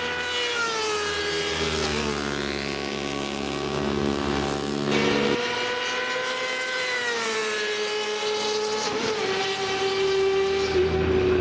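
Yamaha YZF-R6 sport bike's inline-four engine running at high revs on a racetrack, a high, tuneful note whose pitch slides down twice, about a second in and again about seven seconds in.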